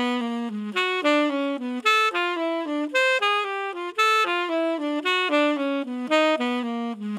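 Tenor saxophone playing a steady run of jazz eighth notes, about four a second: a short four-note pattern moved through keys a minor third apart, outlining a diminished cycle.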